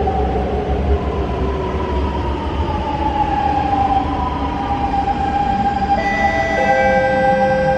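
C651 metro train pulling into the platform and braking: the motors whine in tones that fall in pitch over a fading low rumble. From about six seconds in, several steady higher tones sound as the train comes nearly to a stop.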